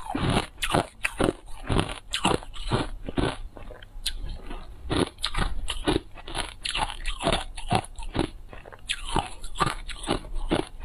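Hard ice coated in matcha powder being bitten and chewed: a dense, irregular run of crunches, several a second, with a brief lull about four seconds in.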